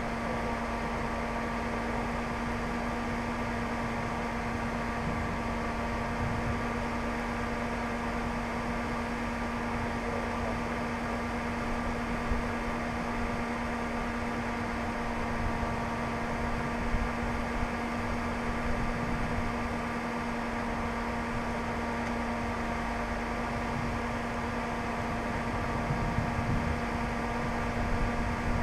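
A steady mechanical hum holding one pitch, with fainter steady higher tones above it, over an uneven low rumble.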